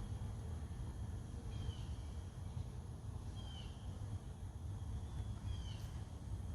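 A bird repeating a short, falling chirp about every two seconds, over a steady low rumble.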